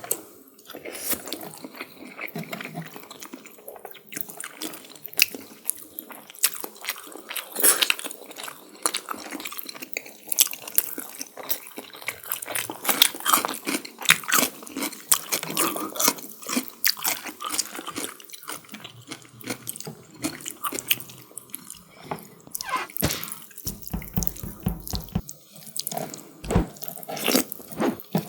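Close-miked wet eating sounds of chicken curry and biryani rice: chewing, smacking and many quick, sharp mouth clicks, a few a second.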